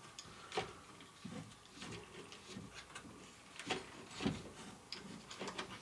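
Faint, irregular clicks and knocks, about two a second, from the turning handle of a toy aquarium being cranked by hand to carry the fish around inside.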